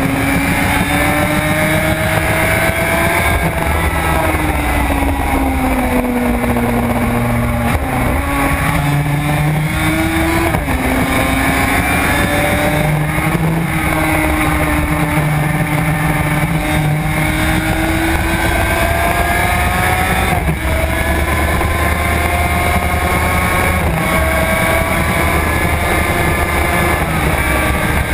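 Suzuki RG500 square-four two-stroke engine running hard at high revs on track, its pitch climbing and dropping as it accelerates and shifts gears, with short breaks at the changes. Wind rushes over the microphone throughout.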